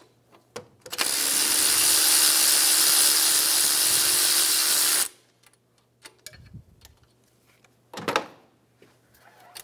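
Power ratchet running for about four seconds as it spins the 12 mm nut off the alternator's battery-cable terminal. It starts about a second in and stops abruptly. A short knock follows near the end.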